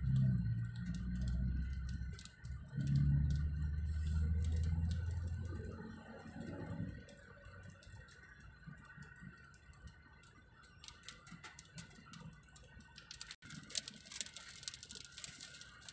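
Raindrops tapping on a car's windshield and roof, heard from inside the car as scattered light clicks that grow denser near the end as the rain picks up again. A low engine rumble fills the first six seconds.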